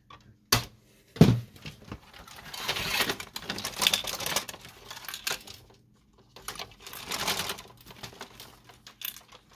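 Two sharp clicks in the first second and a half, then the plastic and metal body of a half-dismantled HP Envy 5660 inkjet printer rattling and scraping in two spells as it is tilted and handled.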